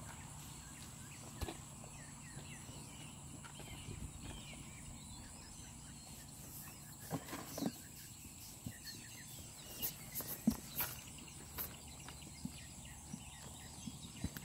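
Faint outdoor background noise with a low steady hum, broken by scattered light clicks and knocks, a few louder ones in the middle.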